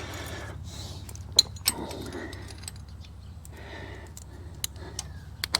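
Small sharp clicks and rustling as wires and terminals are worked by hand into a worn motorcycle stator plug connector, over a steady low hum.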